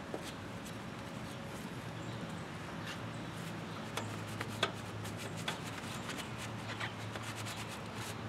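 Wet scrubbing and rubbing of a hand-held wheel-cleaning brush working between alloy wheel spokes and around the brake caliper, with scattered light clicks and taps as it knocks the metal. A low steady hum sits underneath.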